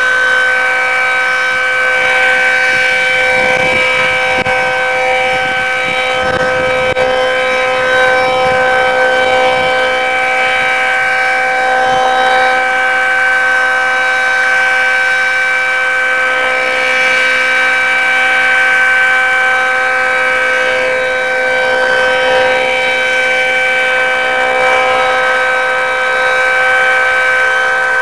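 Federal Signal 2T22A two-tone outdoor warning siren wailing at full speed, a steady chord of two pitches with no rise or fall. Its lower intake is blocked, which gives the rotor a little more speed and a distinctive tone.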